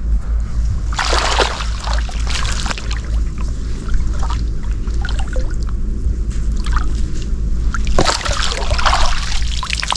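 Water splashing and trickling as a fish trap is lifted and handled, with louder splashes about a second in and again near the end, over a steady low rumble.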